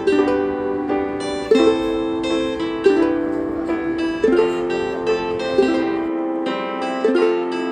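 Background music on a plucked string instrument, picking out a melody with a new chord struck about every second and a half. The bass drops out near the end.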